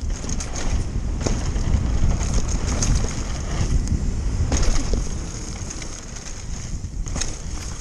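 A downhill mountain bike running fast down a dirt trail. Wind buffets the action camera's microphone over the rumble of the tyres, and there are a few sharp knocks as the bike clatters over bumps.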